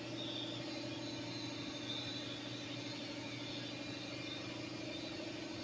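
Shop air compressor running steadily: an even, low hum that holds one pitch throughout.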